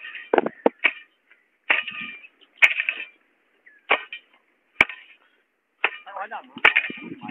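A person moving about on dry cut grass and loose soil: irregular crunching and scraping strokes about once a second, with a few sharp clicks among them.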